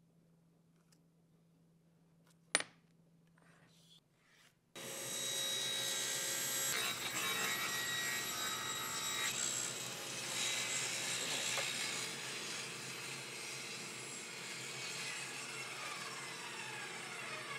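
Table saw cutting a thin strip off a wooden board along the rip fence. It starts abruptly about five seconds in, after a quiet stretch with one sharp tick. Near the end the motor is switched off and its pitch falls as the blade coasts down.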